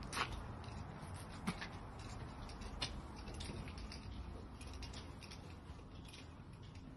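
Faint footsteps walking in through a doorway and along a carpeted corridor: soft taps and ticks, with a few sharper knocks in the first three seconds.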